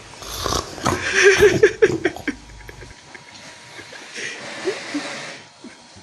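A sleeping cow snoring: one long, loud, rattling breath about a third of a second in, then a quieter breath a couple of seconds later.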